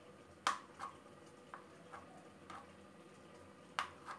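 Knife cutting button mushrooms on a cutting board: about seven light, irregularly spaced taps as the blade goes through and meets the board, the loudest about half a second in and near the end.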